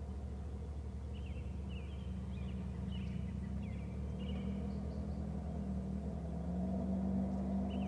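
Steady low rumble with a hum, and faint high bird chirps in short runs about two to four seconds in and again near the end.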